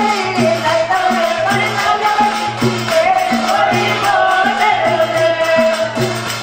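Rajasthani Gavri folk music: a steady drum beat under a wavering sung or played melody line.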